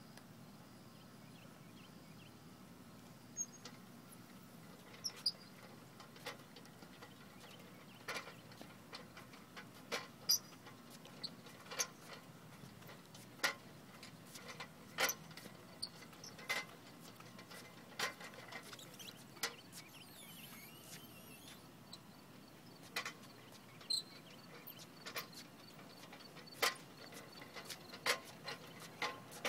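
A small red child's tricycle rolling slowly on a concrete sidewalk, with short sharp clicks about every one and a half seconds as it is pedalled.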